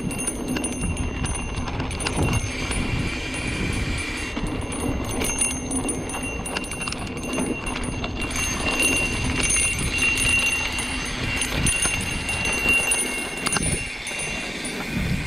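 Mountain bike riding over a rough dirt trail: a steady rumble of tyres on dirt with a continual clatter of small rattles and knocks from the bike.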